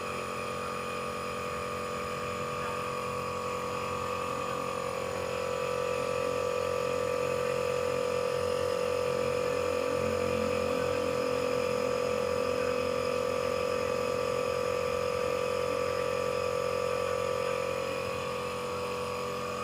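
Compressor nebulizer running, a steady motor hum with a fine buzz. It gets somewhat louder about five seconds in and drops back near the end.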